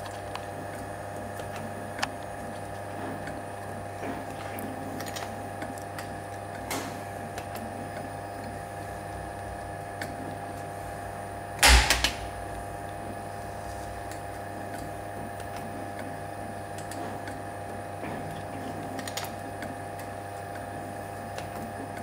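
CNC spring-forming machine running with a steady hum, with a few light clicks and one loud, short metallic clatter a little before the middle.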